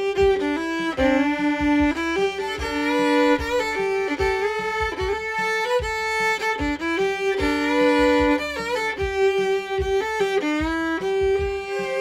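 A solo fiddle plays a simple melody in G in bluegrass style, with strong pickup notes, slides into notes and double stops. A steady low beat runs underneath.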